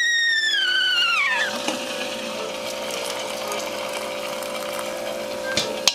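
Stovetop kettle whistling at the boil, its whistle falling in pitch and dying away about a second in as the kettle is lifted off the burner. Boiling water is then poured from the kettle into a bowl.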